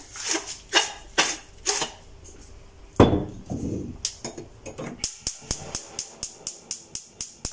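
A few sharp taps as salt is shaken over the pot, a container set down with one heavier thump, then a gas hob's spark igniter clicking rapidly, about five clicks a second, for the last two and a half seconds as the burner under the pot is lit.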